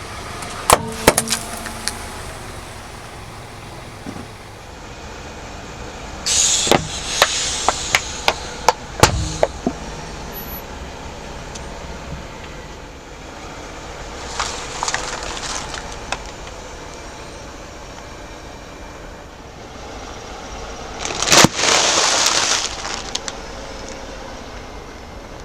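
A car's tyre rolling over brittle objects and crushing them, with sharp cracks and snaps in several clusters: a few near the start, a long run of them from about six to ten seconds in, and a loud burst about twenty-one seconds in. The car's engine runs steadily underneath.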